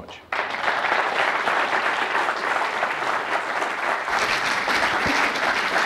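Audience applauding, breaking out suddenly just after the start and holding steady.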